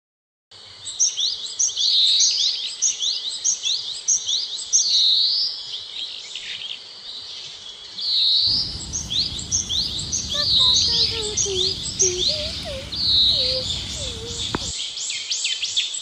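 Forest birds calling, a dense run of quick high chirps mixed with looping whistled notes. About halfway through, a steady low rush joins in with a lower, falling series of notes, then drops away just before the end.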